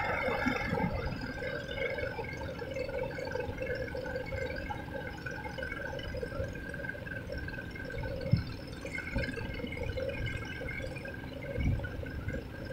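Seawater lapping and gurgling among shoreline rocks, over a steady faint hum, with a couple of brief low thumps.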